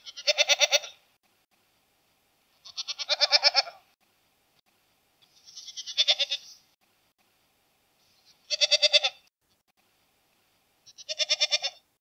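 Goats bleating: five quavering bleats, each about a second long, spaced a few seconds apart.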